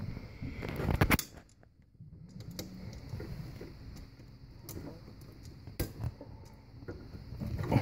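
Light clicks and taps of fingers working a bare ground wire and its screw at a dishwasher's metal electrical box, with a cluster of sharper clicks about a second in and a few scattered ticks after.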